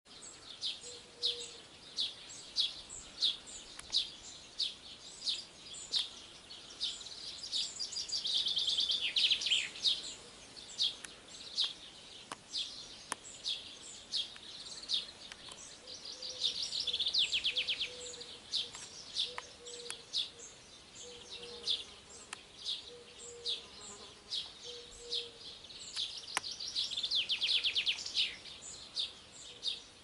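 Songbirds singing: short, high chirps about twice a second, broken three times by a longer trill that falls in pitch.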